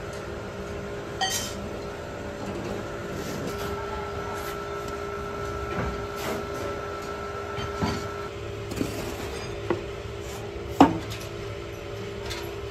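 A shovel scooping and scraping foundry moulding sand into a steel moulding box, with a few short metal knocks, the loudest near the end, over a steady machine hum.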